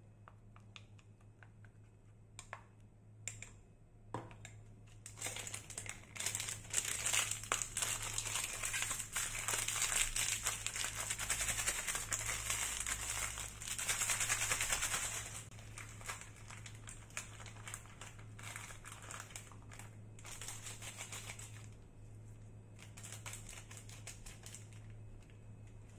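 Packaging being handled and crinkled: a few light clicks and rustles at first, then about ten seconds of dense crinkling, easing to lighter rustling for the rest.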